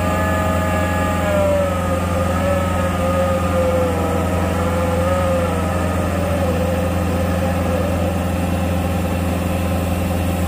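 Skid-steer engine running steadily while its hydraulic ground-screw driver turns a steel ground screw into the ground. A whine over the engine slides lower in pitch over the first five or six seconds and then wavers, as the driver strains against ground too hard for the screw.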